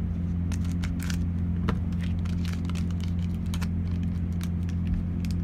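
Scissors snipping open a foil booster pack, then the wrapper crinkling and crackling in irregular clicks as the cards are pulled out. Under it runs a steady low hum.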